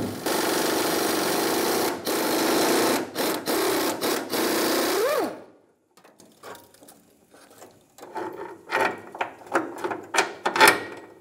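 Impact gun spinning a 15 mm socket to run the nut off a fuel tank strap bolt, running steadily with a few brief breaks for about five seconds before winding down. Then a few light metal clinks and rattles as the tool and nut are handled.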